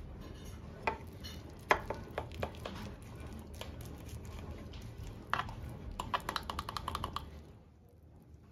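Metal knife cutting through a baked cheese-topped casserole, clicking and scraping against the bottom of a glass baking dish: scattered clinks, the sharpest about two seconds in, then a quick run of taps around six to seven seconds in.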